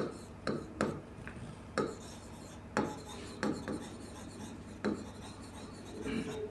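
Marker pen writing on a whiteboard: a run of short strokes at an irregular pace as letters are written and underlined.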